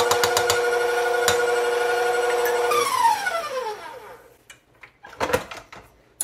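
KitchenAid Professional 600 stand mixer running steadily with a high motor whine while its wire whisk whips egg-white batter, with a few sharp taps near the start. About three seconds in it is switched off and the whine falls in pitch as the motor winds down, followed by a few faint knocks as the whisk is handled.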